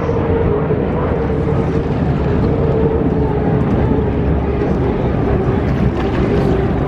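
Unlimited hydroplanes' turbine engines running flat out at race speed: a loud, steady rushing roar with a whine that sinks slightly in pitch as the boats pass.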